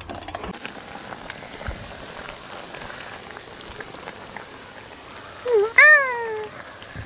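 A stew bubbling in a wok over a wood fire: a steady crackling, spattering simmer. About five and a half seconds in, a short pitched call rises and then falls, louder than the simmer.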